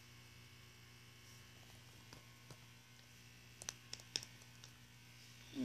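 Low steady hum of room or recording-device background, with a few light clicks about three and a half to four seconds in.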